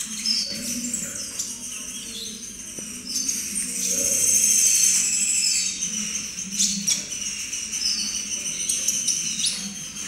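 Juvenile kolibri ninja (konin) sunbird twittering in a cage: a rapid run of high, thin chirps and short falling notes. It is a young bird practising its song.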